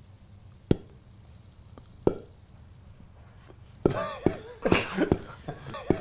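Mouth pops made as a vocal imitation of a sound: two single sharp pops, then near the end a quick run of pops mixed with short voiced 'poof'-like syllables.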